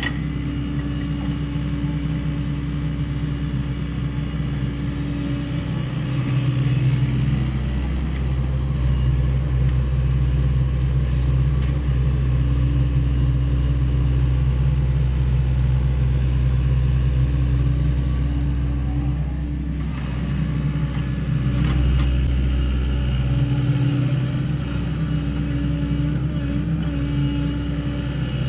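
Sany SY75 excavator's diesel engine running steadily, its note rising and easing with the load as the machine works: louder from a few seconds in, dropping back briefly past the middle, then picking up again.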